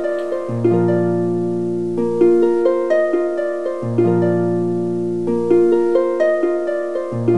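Background music: a light plucked-string tune of quick notes over a low bass note that comes back about every three seconds.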